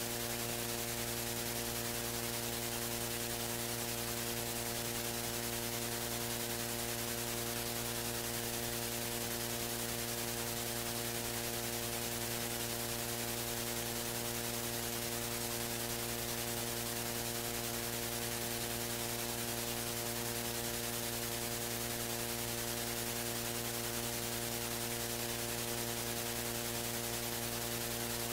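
Steady electrical mains hum with a buzz of evenly spaced overtones over a constant hiss.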